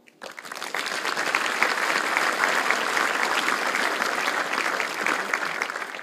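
A large audience applauding, swelling within the first second and thinning out near the end.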